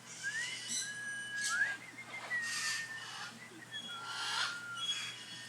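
A parrot whistling: a string of short clear notes, some held level and some sliding upward, with soft hissy noises between them.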